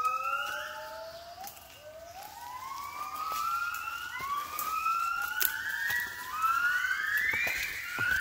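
Yellow-cheeked crested gibbons singing: a series of rising whooping notes, several voices overlapping, coming faster and higher toward the end.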